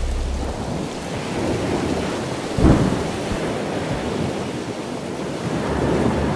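Steady rushing noise with one loud boom about two and a half seconds in.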